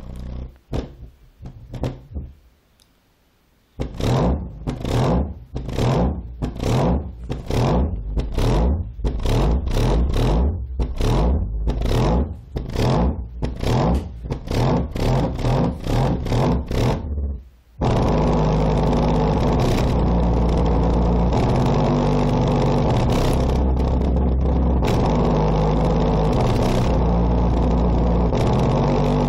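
Rebuilt JL Audio W7 subwoofer playing bass-heavy music at high power, about 4,000 watts. After a brief lull, a kick beat hits about twice a second. About 18 s in, it gives way to an unbroken, loud bass line with shifting low notes.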